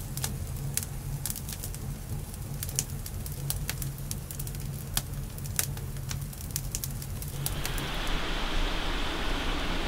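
Wood campfire crackling, with frequent sharp pops from the burning sticks over a low steady roar of the flames. About seven and a half seconds in the pops stop and a steady hiss takes over.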